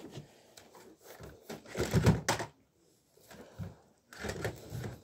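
Rustling and knocks from someone moving and handling things right beside the microphone, with a sharp knock just after two seconds in.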